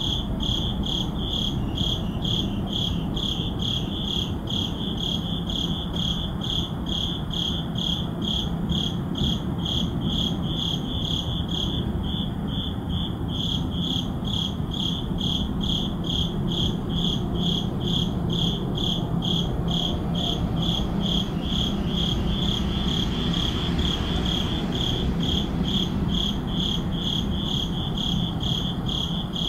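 Crickets chirping steadily at night, a regular pulse of about two chirps a second, over a low steady hum of city background noise.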